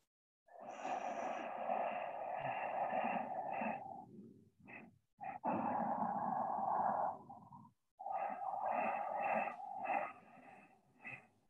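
A woman breathing deeply and audibly in three long breaths of a few seconds each, as she rocks her body over therapy balls pressed into her shoulder and hip.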